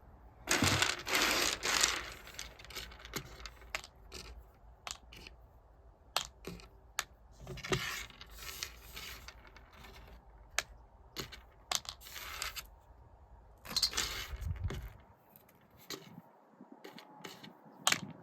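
Dried black soybeans being handled and sorted: irregular small clicks and rattles, with bursts of rustling and scraping as the beans and husks are moved about.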